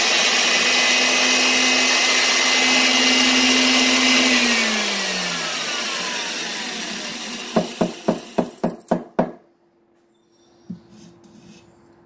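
Old drill press running and drilling through a small steel bracket held in locking pliers, then switched off: the motor's whine falls in pitch as it coasts down. A quick run of about eight sharp clicks comes just before it stops.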